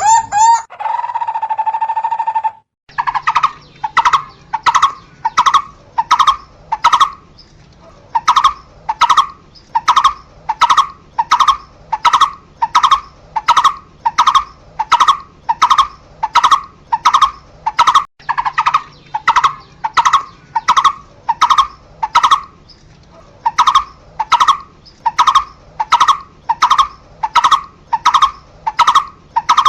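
A barbet calling a long series of hollow, evenly repeated notes, about two a second, with a couple of brief pauses. It is preceded by a short steady tone in the first few seconds.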